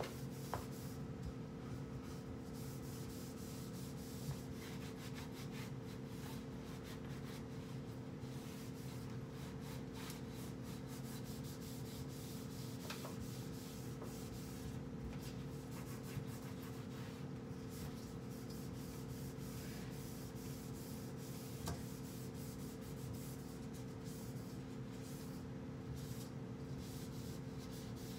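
A cloth rubbing and wiping over kitchen cabinet doors, with a few light knocks, over a steady low hum.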